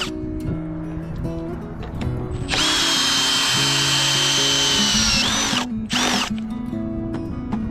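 Power drill running in two spurts: a steady high whine for about three seconds that drops in pitch as it stops, then a short second burst, in all likelihood driving a fastener into the timber frame.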